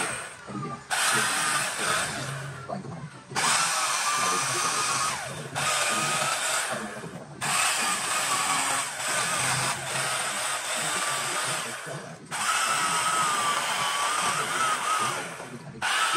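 Handheld power carving tool grinding into rosewood in several long passes: a wavering whine over a rasping noise, broken by short pauses between passes.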